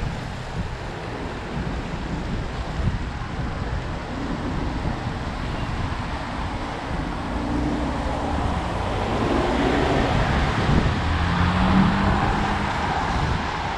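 Wind buffeting the microphone, a steady rumbling noise that grows louder in the second half, with a faint hum coming through.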